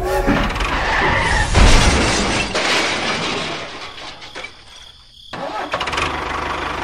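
Vehicle sound effects dubbed over a toy train crash: a brief pitched tone at the start, then a loud noisy clatter with heavy rumble about a second and a half in. After a sudden break about five seconds in, an engine sound runs steadily.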